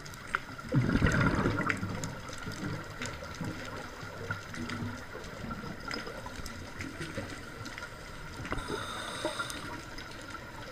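Scuba diver's exhaled regulator bubbles gurgling for about a second, starting shortly after the beginning, heard underwater. Throughout there is a steady underwater hiss with scattered sharp clicks.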